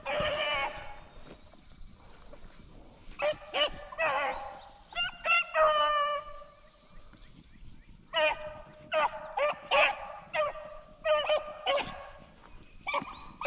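Rabbit hounds barking on a rabbit's track, in bursts of several quick barks with pauses between. They are giving tongue because they have the scent and are running the rabbit.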